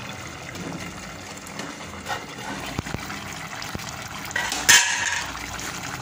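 Aluminium pot lid lifted off a pot of simmering curry, with a few light metal clicks and then one loud metal-on-metal clank about three-quarters of the way through, over a steady bubbling hiss.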